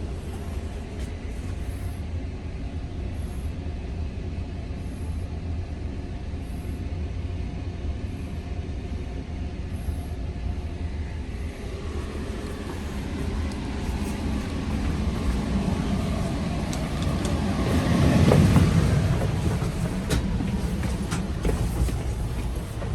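A train running past the station, swelling to its loudest about eighteen seconds in, over a steady low rumble of snowstorm wind on the microphone.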